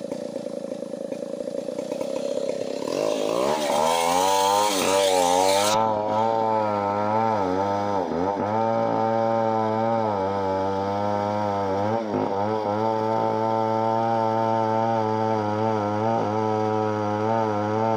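Two-stroke chainsaw revving up about three seconds in, then running at high speed as it cuts bengkirai timber. The engine speed dips briefly twice, around eight and twelve seconds in.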